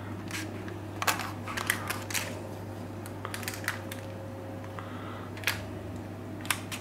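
Irregular light clicks and short scrapes of a kitchen utensil spreading a sticky caramelized almond topping over a tart base in its tin, over a steady low hum.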